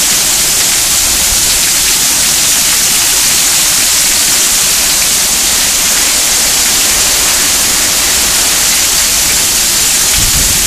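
Heavy tropical-storm rain pouring down on a pool, patio and palm trees: a loud, steady hiss. A low rumble comes in near the end.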